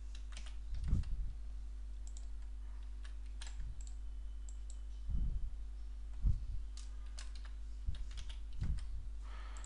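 Computer keyboard typing in scattered keystrokes and clicks, with a few soft low thumps and a steady low electrical hum underneath.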